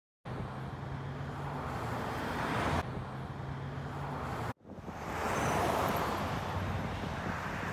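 Road traffic noise beside a two-lane road, with a low steady engine hum, broken twice by abrupt cuts. About two-thirds of the way through, a pickup truck passes close by, its noise swelling and then fading.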